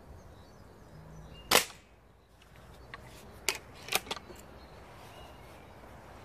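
Mercury Chili Edge .177 air rifle fired once about a second and a half in, a single sharp crack, followed a couple of seconds later by a few lighter, quicker clicks.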